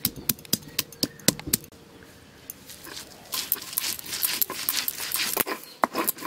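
Stone pestle on a flat grinding stone. First it knocks sharply several times as it crushes garlic and ginger. From about three seconds in, it is rolled back and forth, a gritty stone-on-stone scraping as the paste is ground.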